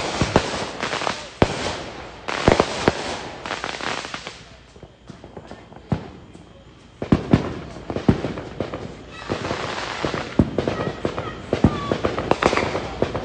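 Fireworks going off: a rapid series of bangs, pops and crackles that thins out for a couple of seconds in the middle, then comes back dense and crackling.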